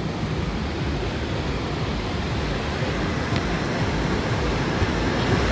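Steady rushing beach ambience, surf and open-air noise, heaviest in the low range, with no single sound standing out.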